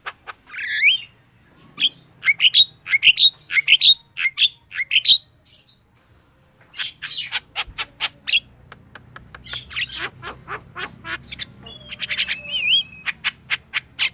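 Yellow-vented bulbul (crucukan) singing in lively bursts of quick, rising chirps. After a short pause about six seconds in, it gives a rapid run of sharp clicking notes, with a few wavering whistled notes near the end.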